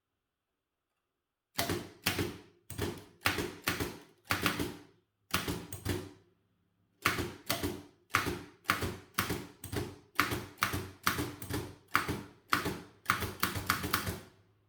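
Typebar typewriter being typed on: about two dozen sharp key-and-typebar strikes at an uneven pace of roughly two a second, starting a second and a half in, with a short pause about six seconds in.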